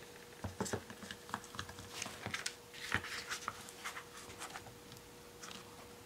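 Hands handling a jointed plastic Monster High doll and its stand: a scatter of light plastic clicks and rustles, busiest from about half a second to three and a half seconds in, then thinning out.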